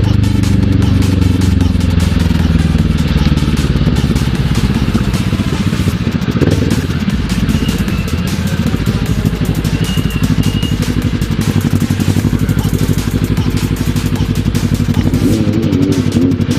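Kawasaki ER-6n motorcycle's parallel-twin engine running while it is ridden, its note fairly steady.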